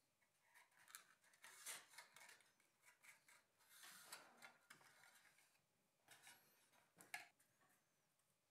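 Faint handling noise of thin balsa stringers being pressed into the notches of a laser-cut balsa fuselage: a few soft scrapes and rustles, with a sharper click about seven seconds in.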